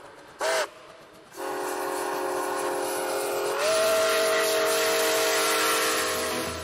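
Steam locomotive whistle: one short toot, then a long blast of several notes at once whose pitch steps up about halfway through, over a steady hiss.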